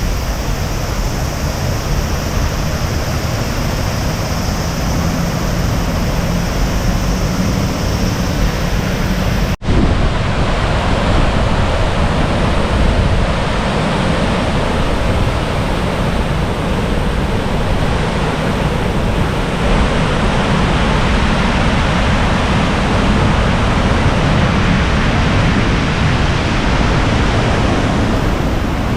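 Rushing water of a low waterfall with a heavy flow, a loud, steady roar. It breaks off for an instant about ten seconds in and then carries on.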